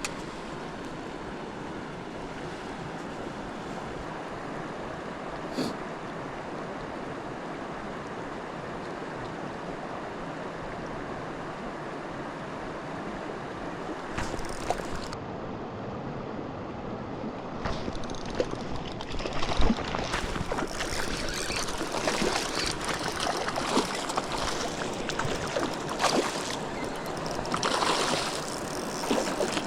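Mountain stream water flowing steadily. From about eighteen seconds in the water noise grows louder and more uneven, with many short clicks and rustles on top.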